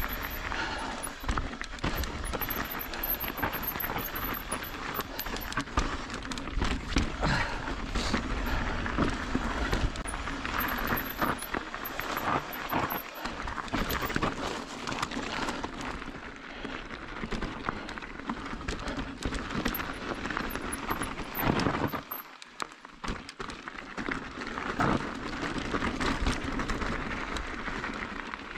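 Mountain bike riding over a rough, rocky dirt trail: tyres crunching on gravel and rock and the bike clattering over bumps, with many short knocks and a steady low rumble. It goes briefly quieter about 22 seconds in.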